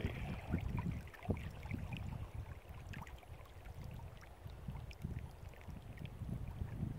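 Small wind-driven waves lapping and splashing irregularly against a plastic kayak's hull, over a low wind rumble on the microphone that eases off in the middle and picks up again near the end.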